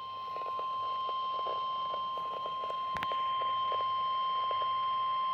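Emergency Alert System attention signal: one long, steady electronic tone over a faint hiss of static, with a single click about three seconds in.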